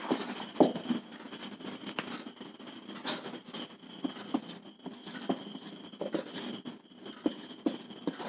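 Marker pen writing on a whiteboard: quiet, irregular taps and short scratching strokes as numbers are written.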